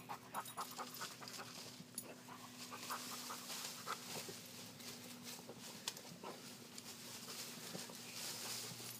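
Dog panting in quick, short breaths, faint, with a light rustle of leaves and branches as it pushes through them searching for the ball.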